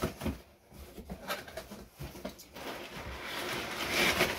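Cardboard shipping carton being opened, its flaps knocking and scraping, then crumpled kraft packing paper rustling and crinkling as the inner box is pulled out, loudest near the end.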